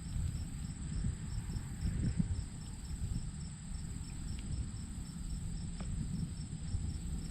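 Insects trilling steadily in a high, even pulsing chorus, with an uneven low rumble underneath.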